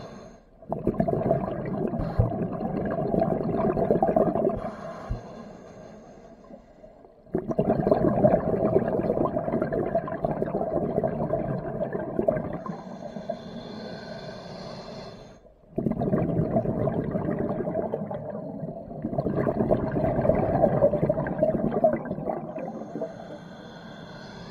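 Scuba diver breathing through a regulator underwater. Several long surges of exhaled bubbles each last a few seconds, and between them the regulator gives a thin, whistling hiss on each inhale.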